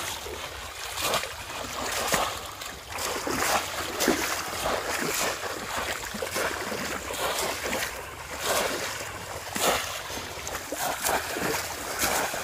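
Water splashing and sloshing over and over, in irregular strikes about once or twice a second, as bamboo polo fish traps are thrust down into shallow water and the fishers wade through it.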